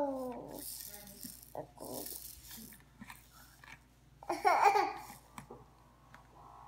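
Baby of about nine months babbling: a falling vocal sound at the start, softer babble around two seconds in, and a louder outburst about four and a half seconds in.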